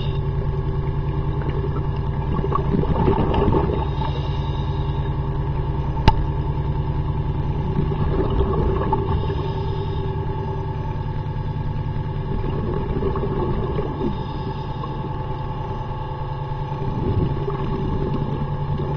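Boat propeller and engine running, heard underwater: a steady low drone with rapid fine pulsing, and a single sharp click about six seconds in.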